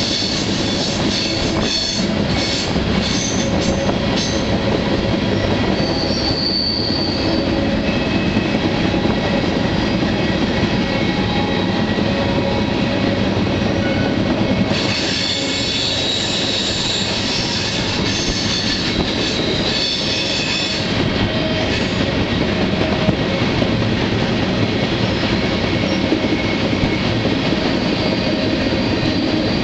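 Freight train rolling along, heard from on board a moving car: loud, steady rumble and rattle of the cars and wheels, with high-pitched squealing of the wheels against the rails that is strongest for several seconds past the middle.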